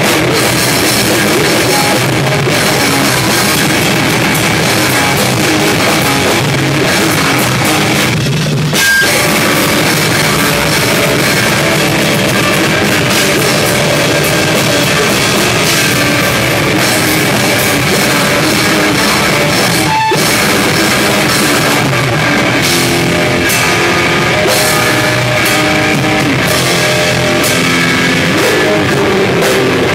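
Loud live heavy rock played on electric guitar and drum kit with crashing cymbals, with brief stops about nine and twenty seconds in.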